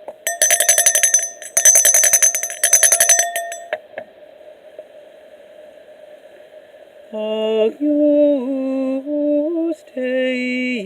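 Hand-shaken altar bells ringing in two quick, jangling bursts. A few seconds later, chanted singing begins on sustained notes.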